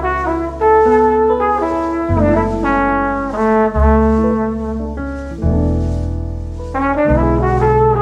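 Instrumental background music: a quick melody of short notes over long, held bass notes.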